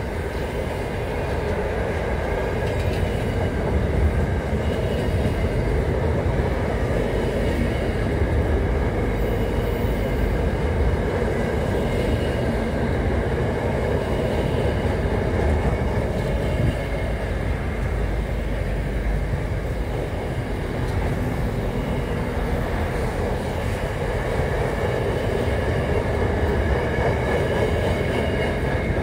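Freight train wagons rolling past close by: a steady rumble of steel wheels on rail, with faint high-pitched squealing tones above it.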